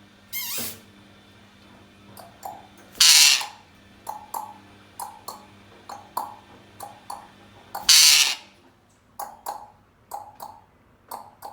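Ring-necked parakeet giving three loud, harsh screeches, with runs of short chirps and clicks between them.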